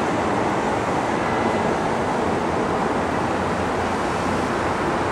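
Hokuso Railway 9000 series electric train moving slowly along a station platform track, giving a steady, even rumble of wheels and running gear.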